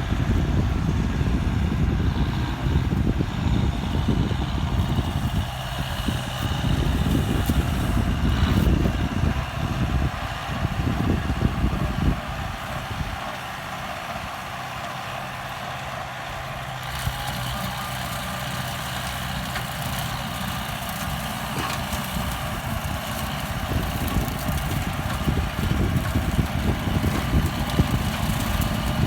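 Kubota M9540 tractor's diesel engine running while it pulls a rotary tiller through old pineapple plants. A heavy low rumble for about the first twelve seconds drops to a quieter, steadier engine drone, then grows louder again with more rattle and hiss near the end.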